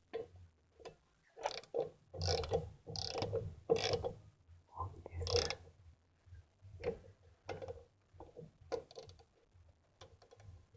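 Ratchet wrench clicking in short, irregular strokes as bolts are turned during brake caliper reassembly.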